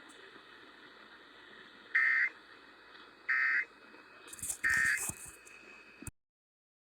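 Emergency Alert System end-of-message data bursts: three short, identical electronic buzzes about 1.3 seconds apart, signalling that the alert is over. They sit over a faint radio hiss with a brief crackle near the third burst, and the sound cuts off suddenly a second later.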